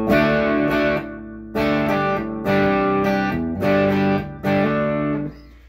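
Electric guitar wired 50s Les Paul style, with its volume on 10 and tone rolled back to 3, played through an overdriven Marshall DSL20HR amp: about five ringing distorted chords, the last fading out near the end.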